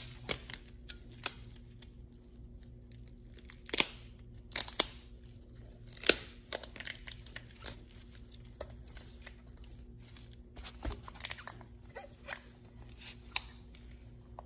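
Duct tape being pulled off the roll in short rips and torn, with scattered crinkles and taps as it is pressed around a Uconnect 8.4-inch radio unit to hold the unit together. A faint steady low hum runs underneath.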